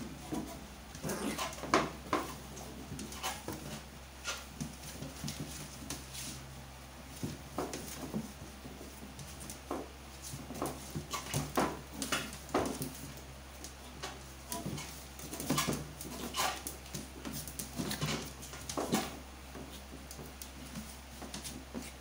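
Two small dogs play-fighting, with short growls and yips over and over and scuffling on the floor.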